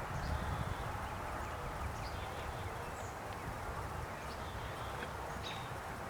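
Steady low rumble of outdoor background noise, with a few faint, short, high bird chirps scattered through it.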